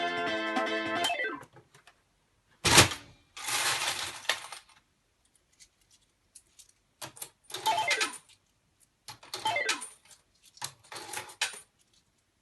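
Japanese Hanabi pachislot token slot machine: its electronic jingle plays and stops about a second in, then a sharp clack and several short bursts of clattering and clicking, with brief falling tones in the later bursts.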